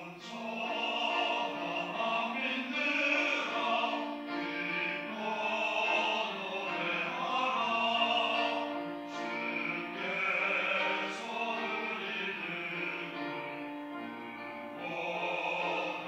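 Mixed choir of women's and men's voices singing a sacred anthem together in harmony, with sustained notes.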